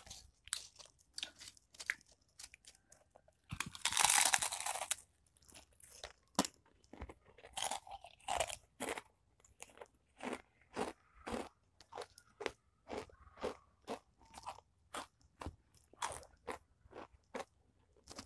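Close-up crunching and chewing of Mister Potato Ghost Pepper potato chips, a mouthful of crisps being bitten and chewed at about two crunches a second. One louder, longer burst of noise comes about four seconds in.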